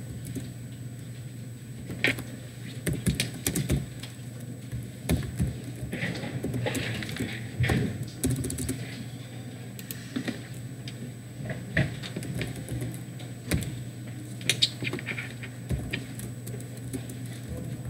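Typing on a computer keyboard: irregular keystrokes in quick runs and short pauses, over a steady low hum.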